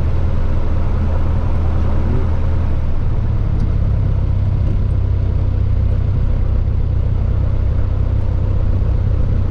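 Robin DR400 light aircraft's piston engine and propeller running steadily while the plane moves on the ground, heard inside the cockpit. The engine note changes slightly about three seconds in.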